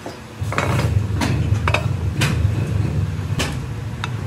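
Sharp metal clanks and knocks, about six at irregular intervals, as a steel casting flask is handled and set down on its pattern plate, over a low steady rumble of machinery that starts about half a second in.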